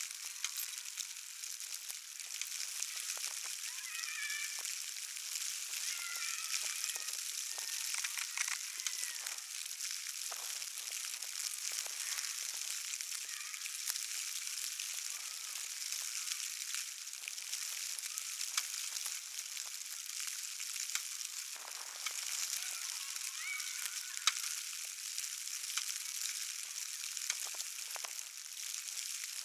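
Steady crackling hiss full of tiny clicks, with faint high chirps of a small bird a few seconds in and again after the middle.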